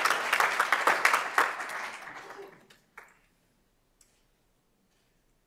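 Audience applauding, dying away over about two and a half seconds, followed by a couple of faint clicks.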